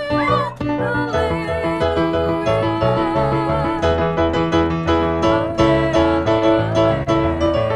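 Piano playing slow, sustained hymn chords, with a singer's wavering held note fading out in the first second.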